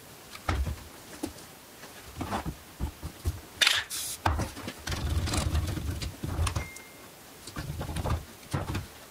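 Irregular knocks, rubbing and rustles of a rifle and paint sponge being handled on cardboard, with a short hiss of an aerosol spray-paint can a little under four seconds in.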